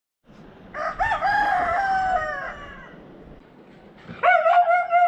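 Rooster crowing twice, each a long call that falls away at the end.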